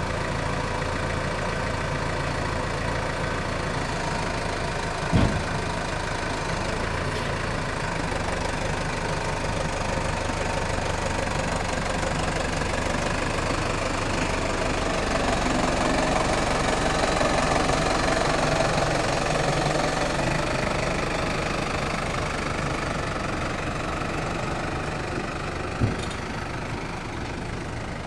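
Case IH JXU 105 tractor's diesel engine running steadily as its rear-mounted homemade crane lifts a jumbo bag, the engine growing louder in the middle of the lift. Two sharp thumps, one about five seconds in and one near the end.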